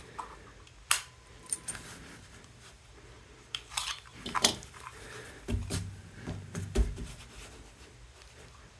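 Beretta 85 .380 pistol being handled: a few sharp metallic clicks and light knocks, with some duller low knocks later on.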